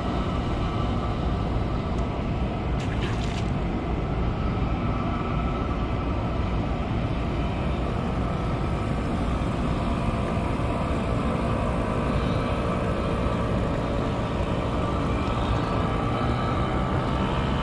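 A steady engine drone over a continuous noisy rush, its pitch shifting slightly near the end.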